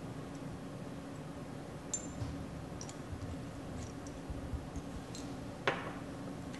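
Faint glass clicks and clinks from a glass dropper and amber glass reagent bottle being handled, then a sharper knock near the end as the bottle is set down on the lab bench. A steady low room hum runs underneath.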